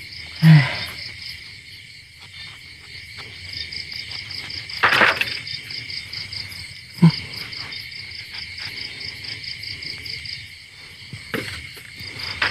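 Crickets chirping in a steady, fast-pulsing chorus, with a few short knocks and a brief rustle over it.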